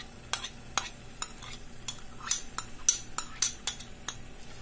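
A metal ladle clinks and scrapes against a small glass bowl and the aluminium cooking pot while fenugreek leaves are knocked out of the bowl, giving about a dozen sharp, irregular clicks. A faint steady hum runs underneath.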